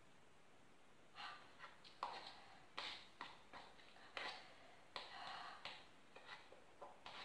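Faint eating sounds from a cup of very spicy instant noodles: a string of short slurps and sniffs, with a few sharp clicks of a fork against the cup.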